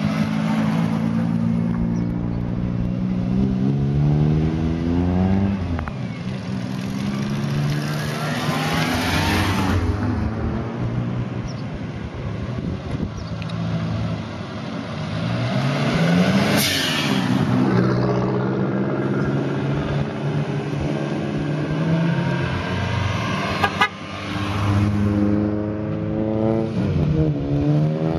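Car engines revving and accelerating hard several times, one car after another, each run rising in pitch through the gears and then falling away, over the steady running of other cars waiting in line.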